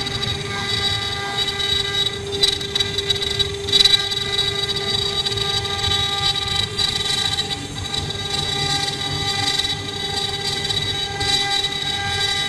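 Four-head CNC wood carving router running: a steady whine made of several held tones over the rough noise of cutting.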